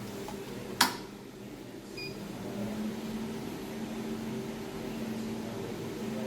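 A switch clicks once on a 200 W desktop jewelry laser welding machine, then a short high beep about two seconds in as the machine powers up, followed by a steady low hum from the machine running, with its built-in water chiller.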